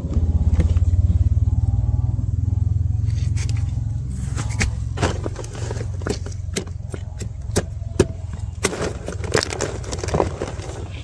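A small motor or engine running steadily with a low hum, loudest in the first few seconds. From about four seconds in come many sharp clicks and scrapes, like objects being handled against hard surfaces.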